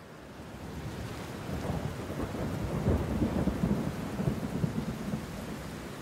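A deep rumble like thunder over a steady rain-like hiss. It swells from about a second in, is strongest around three seconds in, and eases off by about five seconds.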